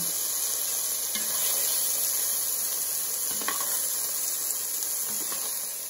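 Turmeric-coated chicken pieces sizzling steadily in hot olive oil in a skillet during searing, with a few light clicks of metal tongs against the pan as pieces are lifted out.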